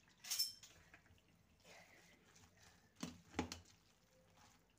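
Boiled noodles being handled with a utensil in a stainless steel strainer bowl during a cold-water rinse. There is a short wet splash near the start, then a few light knocks of the utensil against the steel about three seconds in.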